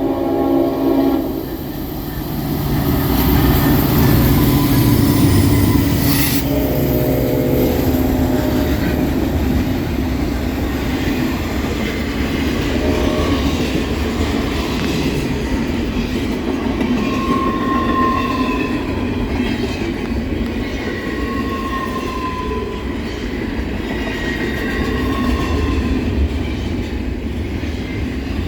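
Norfolk Southern SD60E's Leslie RS5T five-chime air horn sounds at the start and again for a couple of seconds about seven seconds in, as the lead locomotives pass with a loud diesel rumble. The train's cars then roll by steadily, with brief high squeals from the wheels now and then.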